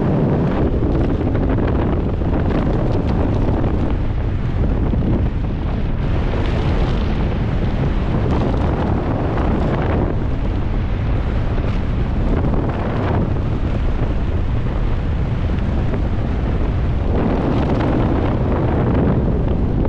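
Airflow buffeting a helmet-mounted camera's microphone during parachute canopy flight: a loud, low rush that swells and eases every few seconds.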